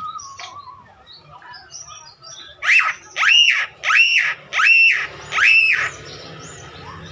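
Caged Javan myna calling: a few soft chirps, then five loud, evenly repeated calls, each a rising-then-falling note with rich overtones, about two-thirds of a second apart.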